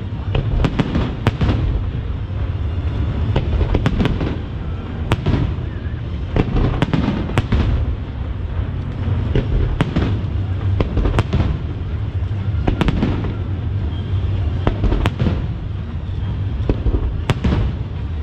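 Aerial firework shells bursting in a continuous barrage: sharp bangs come one to several a second over a steady low rumble.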